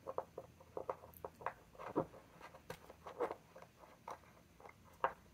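Fingers handling a small plastic ink sample vial and its cap: a string of light, irregular clicks and taps, sharpest about two seconds in and again near the end.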